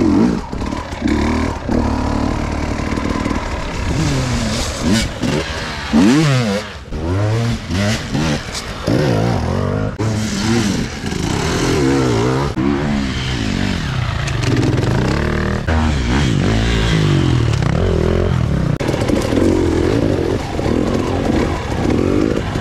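Several enduro dirt bike engines revving hard, their pitch rising and falling quickly and overlapping as the throttles are worked.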